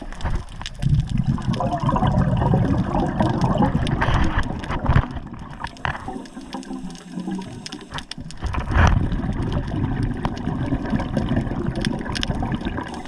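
Water sloshing and splashing, swelling and fading irregularly, with a few sharp knocks.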